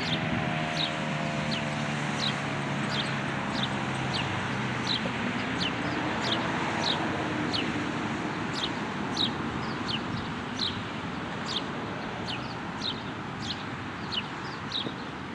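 The last of a Federal Signal 2001-130 outdoor warning siren winding down, its falling tone fading out over the first few seconds. A bird then repeats a short, high, downward chirp about twice a second over steady outdoor noise.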